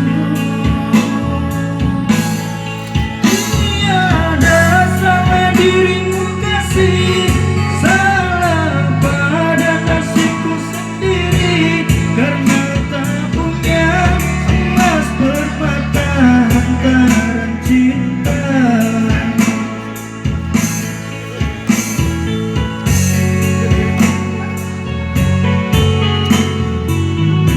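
A song: a sung melody over guitar, bass and drums with a steady beat. The voice is most prominent in the first two-thirds.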